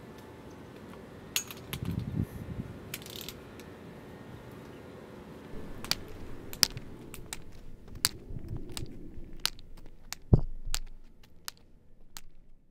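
Footsteps and the taps of a white cane on a concrete path: sharp, irregular clicks about every two-thirds of a second. There is rustling with a few knocks about two seconds in, and one heavier dull thump about ten seconds in.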